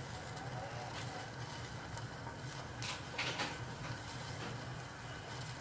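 Milk tea simmering in a steel saucepan over a gas burner: a steady low burner rumble, with a few short bubbling hisses about three seconds in as the tea comes up toward the boil.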